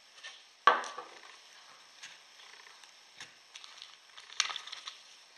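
Small objects being handled on a wooden table. A solid knock about a second in, as a pocket knife is set down on the table, is the loudest sound. Light clicks follow, then a short clinking rattle of small items inside an aluminium tin near the end.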